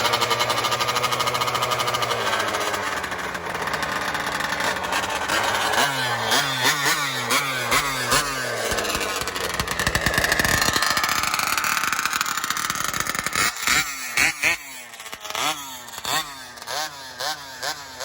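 Gas RC car's small two-stroke engine being revved: a string of quick throttle blips, a longer high-revving stretch, then more sharp blips and a lower pulsing run near the end.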